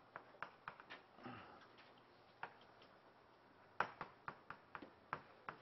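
Chalk tapping and clicking on a blackboard while writing. There are a few sharp, quiet taps in the first second and a single tap midway, then a quicker run of taps in the last two seconds.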